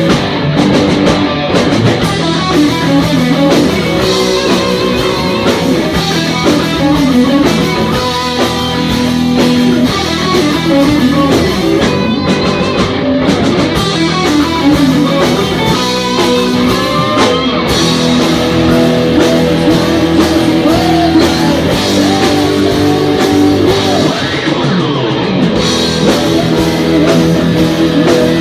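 Heavy metal band playing live and loud: distorted electric guitars over bass and a drum kit.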